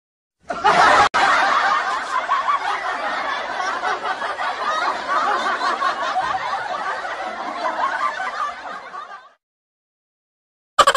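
Laughter sound effect lasting about eight and a half seconds, with a brief cut about a second in. Just before the end, a different effect begins with a fast run of pulses.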